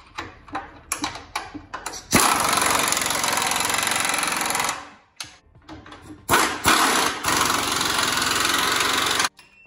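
Pneumatic impact wrench running in two bursts of about two and a half and three seconds, tightening the front differential's mounting bolts in the frame bracket. Before the first burst come a few light metal clicks and knocks.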